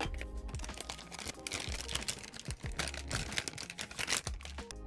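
Plastic parts bag crinkling and rustling as it is handled and opened, with many small irregular crackles and clicks.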